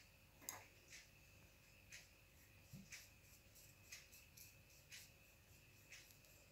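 Near silence with faint, sharp clicks evenly spaced about once a second, over a faint steady high whine.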